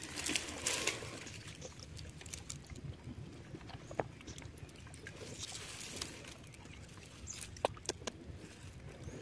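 A wire-mesh fish trap is lifted out of shallow water and handled among dry reeds, with a short splash of water in the first second, then faint rustling and scattered light clicks of mesh and reed stems.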